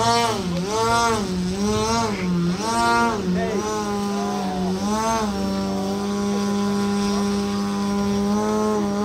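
Radio-controlled aerobatic plane's motor and propeller running while the plane hangs nose-up in a hover. The pitch rises and falls about once a second with the throttle for the first five seconds, then holds a steady note.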